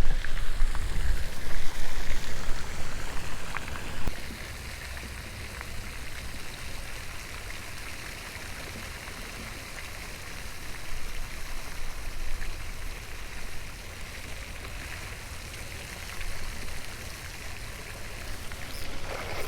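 Pond fountain's spray falling back onto the water: a steady hiss of splashing water. A louder low rumble runs under it for the first four seconds or so.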